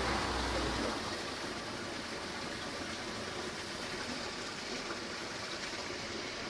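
Steady rush of stream water running through a cavern washed out beneath a road, the flow that carried away the subsoil.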